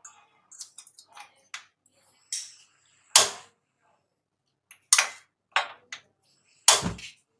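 Stove being switched on: three loud clicks about two seconds apart, with fainter ticks between.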